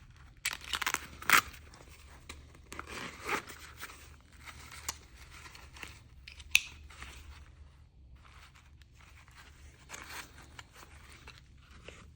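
Small clicks and scrapes from an automatic folding knife being handled, irregularly spaced, with one sharp click about six and a half seconds in.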